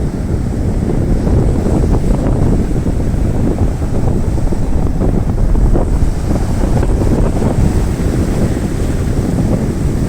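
Strong wind buffeting the microphone in a steady low rumble, over waves of the Sea of Azov breaking on the shore.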